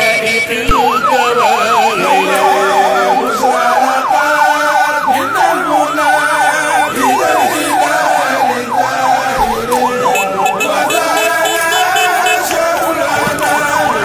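Electronic siren on an arriving convoy vehicle, wailing in a fast up-and-down yelp that starts about a second in and changes near the end, over crowd voices.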